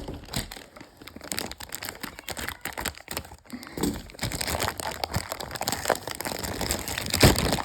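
Packaging crinkling and crackling as it is handled and pulled open to get a model locomotive out, with a louder crackle near the end.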